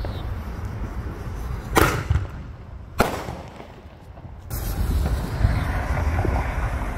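Consumer fireworks going off: two sharp bangs about a second apart, then from about halfway through a steady crackling hiss with scattered small pops.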